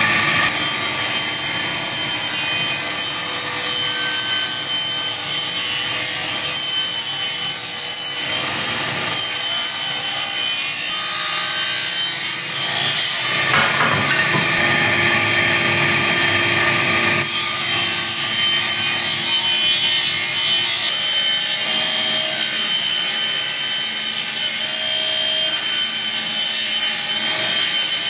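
Table saw running and ripping long thin wooden strips as they are pushed along the fence, a steady loud blade-through-wood sound; the sound changes for a few seconds about halfway through, as between cuts.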